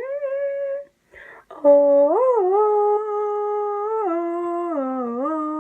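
A voice holding long, clear notes: a short one that rises and stops about a second in, then after a pause a longer one of about four seconds that swoops up, levels off and dips twice.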